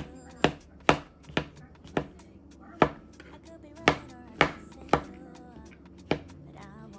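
Chef's knife slicing button mushrooms on a plastic cutting board: about ten sharp knocks of the blade hitting the board at an uneven pace.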